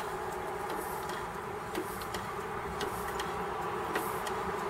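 Gas-fired cast-iron Rider-Ericsson hot air pumping engine running, a steady hum with light mechanical clicks from its moving parts about once or twice a second.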